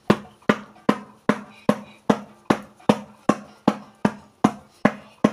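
Rhythmic percussion of a patient's back with a hand-held patting tool, even knocks about two and a half a second. It is chest physiotherapy, done to loosen phlegm so the patient can cough it up.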